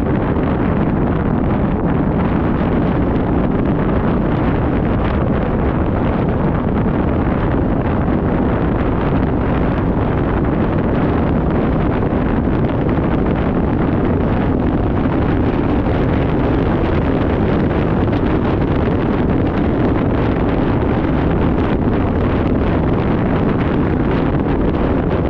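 Steady, loud rushing noise, like wind buffeting the microphone over a low rumble, unbroken and even in level.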